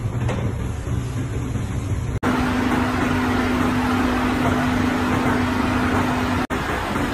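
Casting-factory machinery running: a low, steady hum for the first two seconds, then it changes abruptly to a louder steady hiss and drone at the slurry-dipping station. It drops out briefly near the end before a similar hum resumes.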